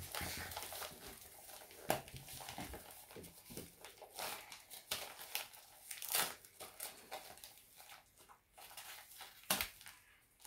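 Gift wrapping paper crinkling and tearing as a tightly wrapped present is picked at and pulled open by hand, in irregular crackles with a few sharper rips.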